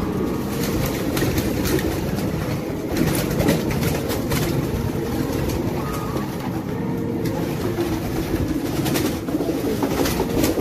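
Racing pigeons cooing together in the loft over a steady low rumble. A few sharp knocks come about three seconds in and again near the end.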